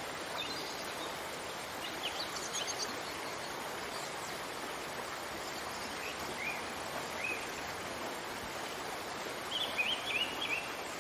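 Steady rush of falling water with birds chirping now and then, a quick run of chirps about a second before the end.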